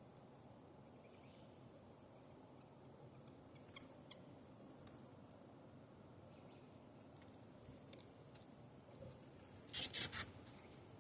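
Small birds at a bird feeder: a few faint scattered ticks over a quiet background, then a quick cluster of three sharp clicks about ten seconds in.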